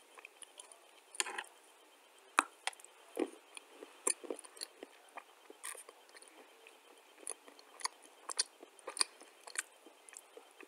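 Dry chunks of clay being chewed, a close run of irregular sharp crunches and clicks, the loudest a little over two seconds in.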